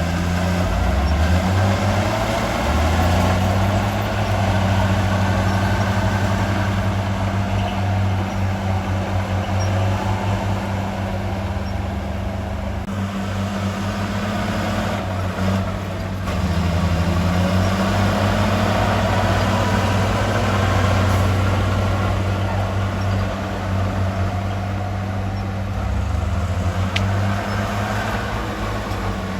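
Heavy diesel engine of earthmoving equipment running steadily, its pitch stepping up and down a few times as the engine speed changes.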